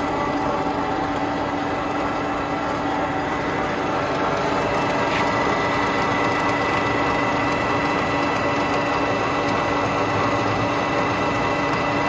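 Barber Colman 6-10 gear hobbing machine running, its hob cutting the teeth of a small steel pinion under a stream of cutting oil: a steady machine hum with a constant whine. A higher whine joins about five seconds in.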